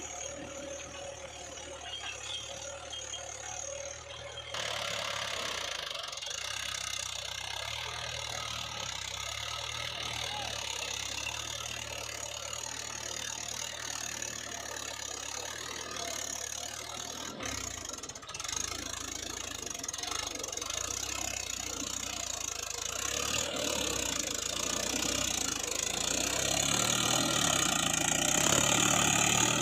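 Mahindra 575 DI tractor's diesel engine running steadily, getting louder in the last few seconds.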